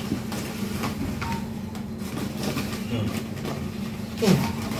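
A steady low mechanical hum runs underneath, with faint rustles and knocks of hands working a shrub's root ball and potting soil. A short voice sound comes near the end.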